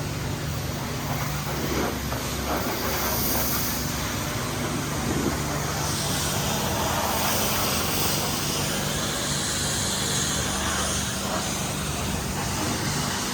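High-pressure washer spraying water in a steady hiss, over a low, even hum.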